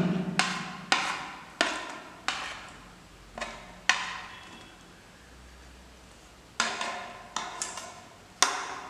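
Kitchen utensil knocking against a mixing bowl while ingredients go in: about ten sharp knocks at uneven intervals, each ringing briefly, with a pause of about two seconds in the middle.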